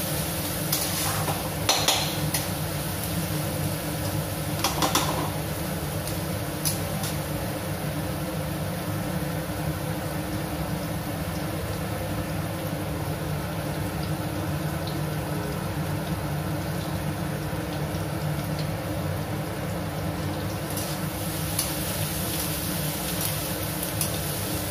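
Chopped onions sizzling steadily as they fry in mustard oil in a steel kadai. A metal spatula scrapes and clinks against the pan during stirring in the first few seconds and again near the end.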